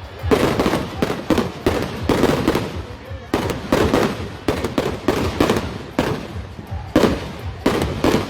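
Aerial fireworks bursting in quick succession, a steady string of sharp bangs with booming rumble, about one or two a second.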